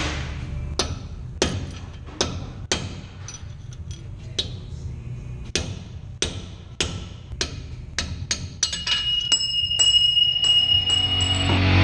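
Sharp metallic taps, a hammer striking metal, repeated about every half second to second over a low hum. A high ringing tone joins over the last few seconds and cuts off suddenly.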